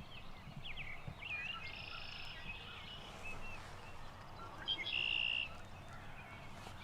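Small songbirds chirping and singing, with a short buzzy trill near the start and a louder one about five seconds in.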